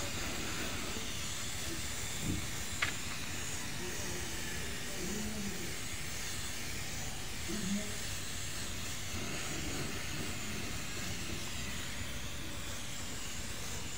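Compressed-air paint spray gun hissing steadily as it sprays paint onto a car body panel, with one short sharp click about three seconds in.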